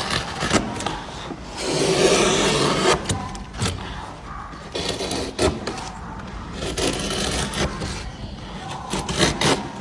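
Hand carving chisel cutting into wood, a series of scraping strokes of a second or so each with sharp clicks between them as shavings curl off.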